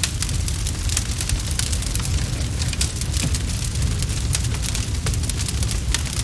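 Wood fire crackling in a fireplace: a steady low rumble of flame with many sharp, irregular pops and snaps.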